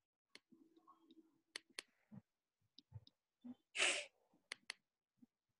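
Faint, scattered short clicks and one short breathy hiss about four seconds in, heard over a video-call line.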